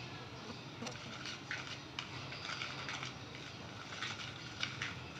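Light, irregular clinks and scrapes of a utensil against a mixing bowl as dry ingredients are stirred into cake batter, over a faint steady hum.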